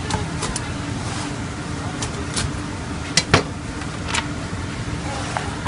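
A long knife blade pressed down through a pizza crust and knocking against the pizza peel beneath: several short sharp knocks, a close pair a little past three seconds in the loudest. Steady background noise with a low hum runs underneath.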